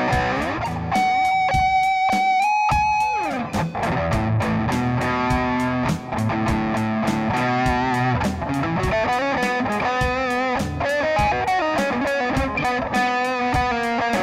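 Electric guitar played through a Digitech RP55 multi-effects processor, soloing over a backing track with a steady drum beat and bass. It starts with a long held note that is bent up and then slides down, followed by quick melodic runs with vibrato.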